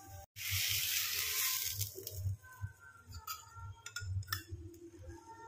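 Dhapate dough frying in oil on a hot pan: a loud sizzle starting suddenly just after the start and lasting about a second and a half, then settling to a lighter sizzle with a few light clicks.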